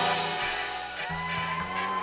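Close of a K-pop dance track: the drums have stopped and only held bass and higher notes ring on, quieter, with one note sliding up about a second in.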